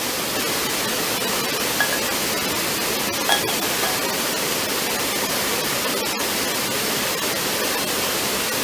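Steady rushing noise of a waterfall, even throughout, with two faint light clicks a couple of seconds in.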